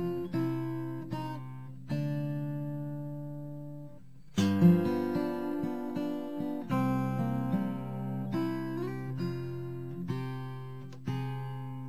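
Acoustic guitar music: plucked notes and strummed chords that ring and fade, with a louder chord struck a little past four seconds in.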